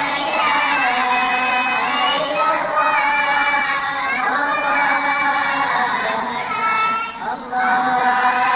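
A crowd of many children's voices shouting and chanting at once, with a short lull a little after seven seconds in.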